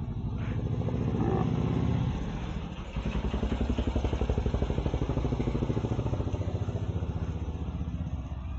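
A small engine running with a fast, even putter. It grows louder about a second in, dips briefly, swells again around the middle and fades slightly near the end.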